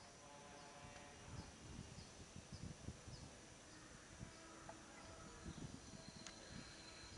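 Near silence: faint outdoor ambience with a faint high chirp repeating about twice a second that stops about halfway through, and scattered soft low thuds.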